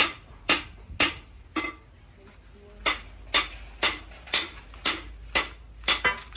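Sharp knocks at an even pace of about two a second, with a pause of about a second near the middle.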